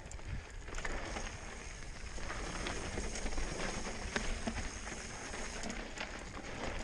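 Steady noise of movement over a rocky trail, scattered with small clicks and crunches of grit and stone.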